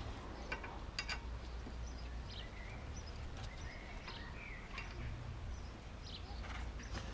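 Quiet outdoor background: faint birds chirping over a low steady hum, with a couple of light clicks about half a second and a second in.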